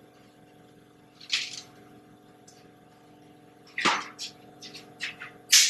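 A few short scrapes, rustles and a knock from moulding sand and tools being handled at a foundry moulding bench, the loudest near the end, over a steady low hum.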